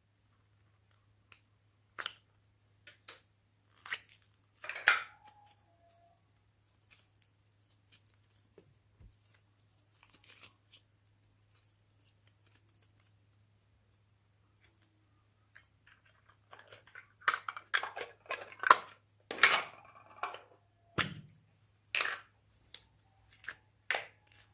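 Slime being handled and stretched by hand: scattered sticky crackles, pops and tearing sounds, sparse at first and then coming thick and fast for several seconds near the end. A faint steady low hum runs underneath.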